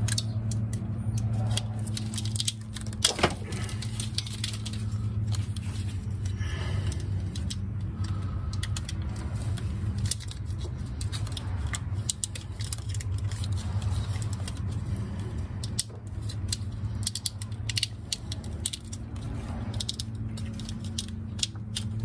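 Corrugated plastic wire loom being handled, cut and fitted over harness wires: scattered clicks, crackles and rattles, with one louder snap about three seconds in. A steady low hum runs underneath.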